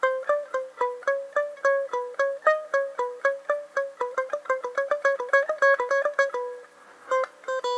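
Electric guitar playing a quick run of single picked notes on the thin strings, about four or five notes a second: a three-note fretting-pattern exercise (frets 3-4-6, 3-5-6, 3-5-7) going up and back down. The run stops about six and a half seconds in, and a couple more notes follow near the end.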